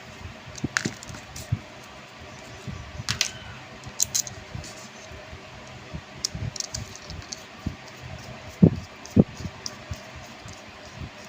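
Scattered small clicks and taps of a screwdriver and metal parts as two screws are tightened on a gas stove's ignition assembly. Two louder knocks about half a second apart near the end.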